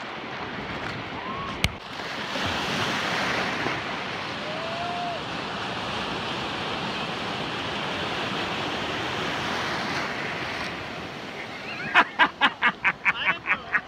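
Small ocean waves breaking and washing in shallow surf, a steady rushing wash. Near the end, a fast run of short sharp sounds, about five a second.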